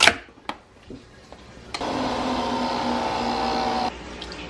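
Nespresso capsule coffee machine: a sharp clack as its lid is shut and locked, a few small clicks, then about two seconds in the machine starts brewing with a loud, steady mechanical hum that cuts off suddenly near the end.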